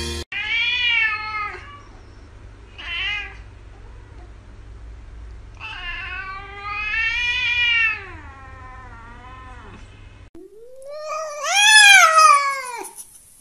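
Domestic cats meowing. There is a meow about half a second in, a short one a couple of seconds later, and a long drawn-out meow in the middle. Near the end another cat gives the loudest meow, rising and then falling in pitch.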